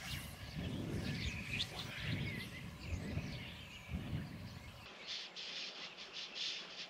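Birds chirping and calling, with a gusty low rumble of wind on the microphone that stops about five seconds in, leaving the chirps clearer.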